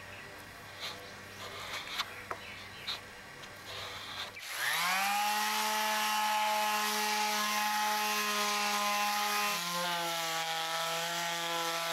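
A putty knife scraping and tapping as wood filler is pressed into pressure-treated wood, a few faint scrapes. About four seconds in an electric palm sander starts, spinning up fast to a steady high whine with a rasp of sandpaper on the wood; near the end its pitch drops a little.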